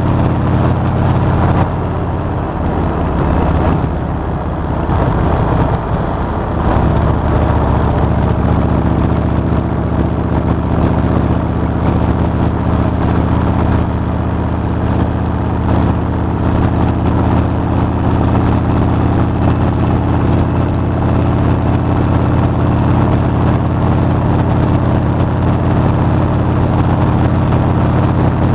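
Motorcycle engine running at a steady cruise on the highway, heard from the rider's seat with wind rush. About two seconds in it eases off and drops a little in level, then pulls back up and holds steady.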